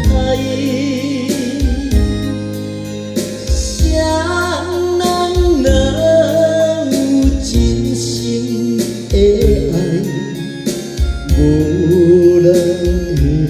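A voice singing a Taiwanese ballad with vibrato over a backing track, the sung notes held and wavering.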